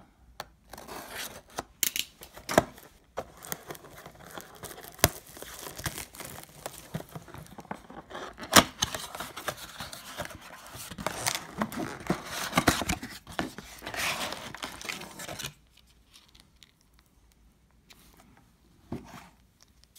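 Utility knife slitting the tape seals on a cardboard trading-card blaster box, then the flaps being torn open: scraping, tearing and many sharp clicks, with one loud click about halfway through. It falls nearly quiet for the last few seconds.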